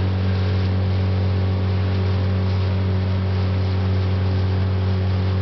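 Motorboat engine running steadily under way, a constant low drone, with a hiss of wind and water rushing past.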